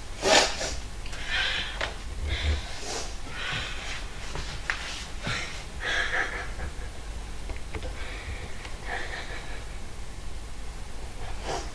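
A boy crying: irregular sobs, sniffs and gasping breaths.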